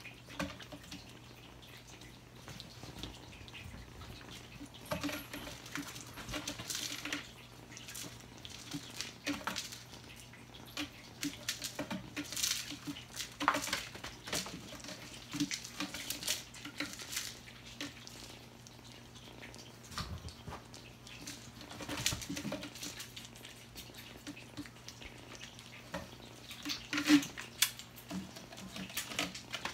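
Kittens scrambling and pouncing on a carpeted cat tree: scattered scratches, taps and soft thumps of paws and claws, over a steady low hum.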